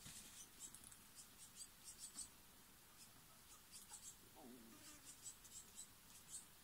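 Near silence: faint, quick, high scratchy ticks in irregular clusters, with one soft short call about four and a half seconds in.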